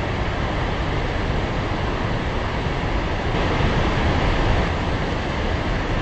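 Large waterfall rushing steadily: a dense, unbroken noise of heavy water pouring and crashing, with a deep rumble underneath.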